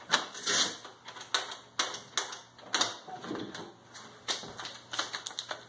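Shotlock 200M Solo-Vault's mechanical push-button combination lock clicking as the buttons are pressed, then the vault opening and the shotgun being drawn out, a string of sharp clicks and knocks.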